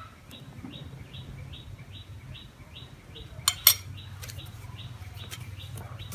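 A metal spoon clinks twice against a ceramic plate as it is set down, about halfway through, with a few lighter taps after. A short, high chirp repeats evenly about two to three times a second behind it.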